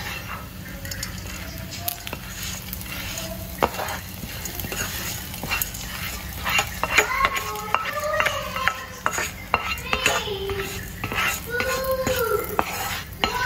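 Spatula scraping and knocking on a nonstick frying pan as the hot fried coconut and dal tempering is pushed out into the pot, with a light sizzle. Short clicks and scrapes run throughout, and from about seven seconds in come squeal-like scraping tones.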